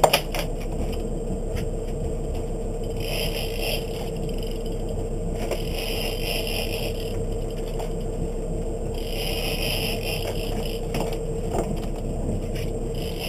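Big-game fishing reel whirring in spells of a second or two, about every three to four seconds, as the rod is pumped and wound against a heavy fish on the line. Underneath runs a steady hum and rumble from the boat.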